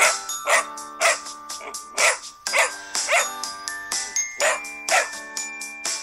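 A puppy yapping, short sharp barks about two a second in twos and threes, over light background music with held notes.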